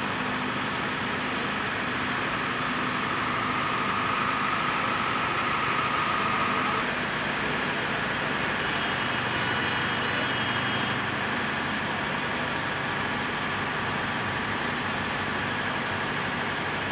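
Steady rushing noise of the rain-swollen stream running fast around bridge pillars and a pile of branches. No separate events stand out, and a faint high tone in the background stops abruptly about seven seconds in.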